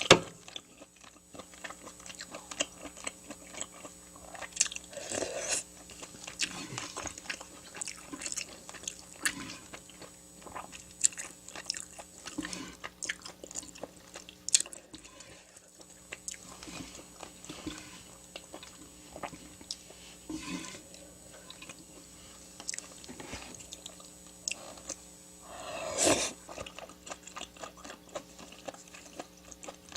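Close-miked eating: biting and chewing with frequent small crunches and wet clicks, from a meal of Korean-Chinese noodles and fried dishes. A few louder, longer mouth noises stand out, the loudest near the end.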